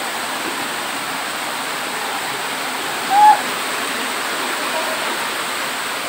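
Small waterfall cascading over rocks: a steady rush of falling water. About three seconds in comes one brief, short pitched sound that rises and falls.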